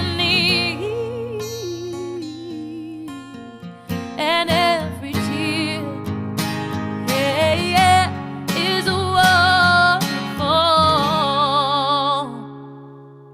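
The closing bars of a pop-rock song: strummed acoustic guitar with the band and a wordless sung vocal with vibrato. The song ends about twelve seconds in, and a last low chord rings on and fades away.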